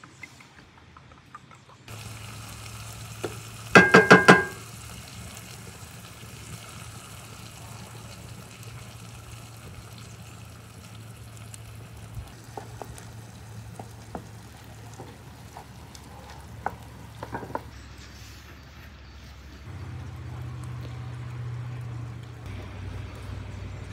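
A wooden spoon beating eggs in a ceramic bowl, then a steady frying sizzle from a hot pan as the beaten egg goes in. A quick run of sharp ringing knocks about four seconds in is the loudest sound.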